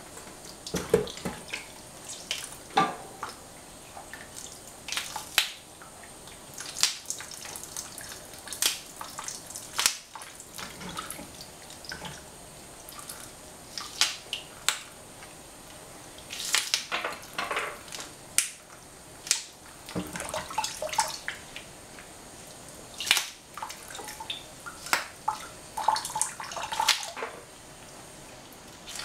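Washed green beans being handled in a saucepan at a stainless-steel kitchen sink: irregular wet clicks, taps and drips with short quiet gaps.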